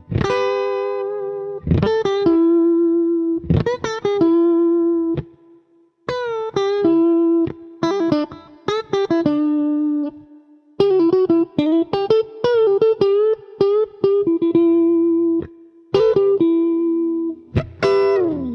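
Fender Stratocaster electric guitar played clean on its middle and bridge pickups together: single-note lead phrases with held notes shaken by vibrato, broken by two short pauses.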